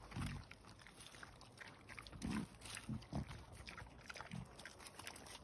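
Wild boars grunting in short, low bursts, about five in all, as they feed.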